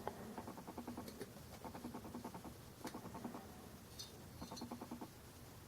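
Faint rapid clicking in several short runs: a pressure relief valve being unscrewed from a mini oxygen bottle's threads with a homemade tool turned in a tap wrench.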